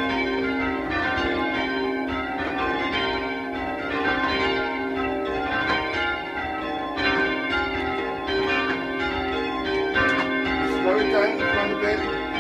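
A ring of church bells being rung down, heard from inside the ringing chamber: many bells striking over and over in a dense, overlapping jangle with no break.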